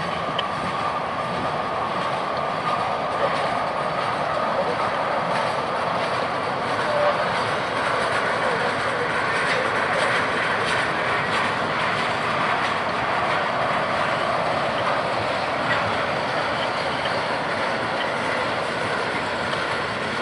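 Freight train of tank cars and bulkhead flatcars rolling past at trackside: steady wheel-on-rail noise with scattered light clicks and a faint steady high tone.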